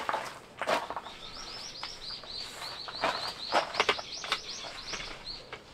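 A small bird singing a quick trill of repeated high chirps, about five a second, lasting some four seconds. A few sharp knocks and rustles of handled gear sound over it.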